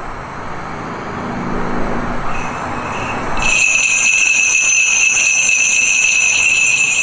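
Live experimental music from the stage: a noisy wash swells, then about three and a half seconds in several steady high tones come in together and hold.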